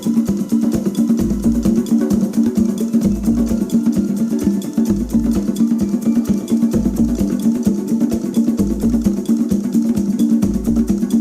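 Background music with a quick, even rhythm of short percussive notes over a steady mid-range melody, and a low bass note about every two seconds.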